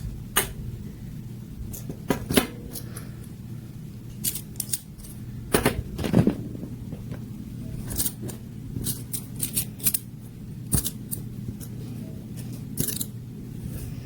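Small plastic magnetic building cubes clicking and snapping together as they are handled and stacked. Sharp clicks come at an uneven rate, several in quick runs, over a low steady hum.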